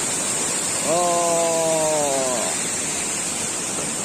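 Steady rush of a waterfall. About a second in, a man's voice draws out one long, slightly falling sound for about a second and a half.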